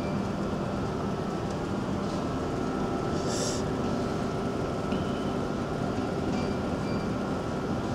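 Steady mechanical drone of a cargo ship's bridge: ventilation and the ship's machinery humming, with a faint steady high tone over it and a brief hiss about three seconds in.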